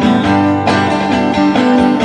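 Acoustic guitar strumming chords, each strum starting sharply and ringing on.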